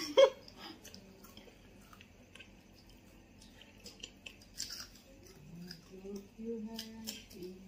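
People chewing and biting crunchy potato chips: scattered soft crackly crunches. A faint low wavering tone joins in during the second half.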